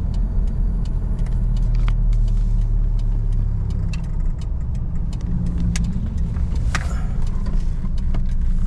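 Car driving, heard from inside the cabin: a steady low engine and road rumble whose engine note shifts about four seconds in as the car slows for a turn, with scattered light clicks and rattles.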